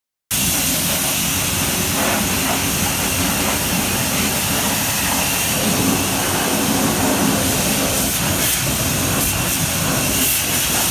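High-pressure car wash wand spraying water against a pickup truck's side and wheel, a loud steady hiss that starts abruptly a moment in.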